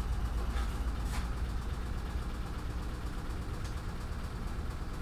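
A steady low hum, with a few faint light clicks of metal timing-drive parts being worked loose on a bare engine block.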